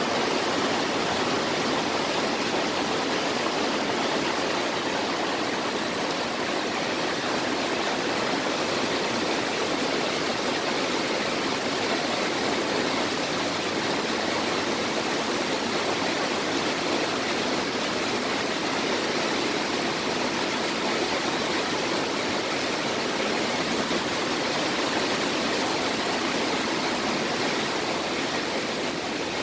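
Heavy thunderstorm rain pouring down steadily, a dense, even hiss of water.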